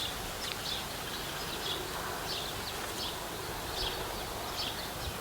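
Outdoor ambience: a steady low rumble of breeze on the microphone, with a bird chirping short high notes over it, about two a second.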